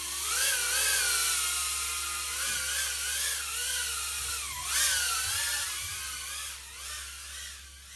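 HGLRC Petrel 75 tiny whoop FPV drone in flight, its four 0802 17000 KV brushless motors and ducted props whining, the pitch rising and falling with the throttle. Loudest about a second in and again near five seconds, then fainter towards the end.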